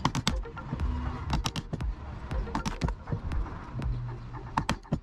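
A chisel breaking out the waste between saw kerfs in a wooden board: a run of sharp, irregular cracks and taps as the thin slivers of wood split and snap away.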